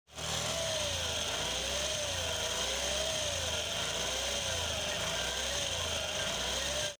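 Honda Activa scooter running, with a whine from its gearbox that wavers up and down in pitch about once a second over a steady mechanical noise. This is the gearbox noise fault.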